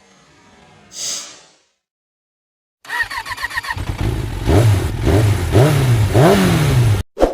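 A short whoosh, then after a pause a small motorcycle engine is cranked with a rapid ticking, catches and is revved four times in quick rising-and-falling blips before cutting off abruptly, followed by a short hit.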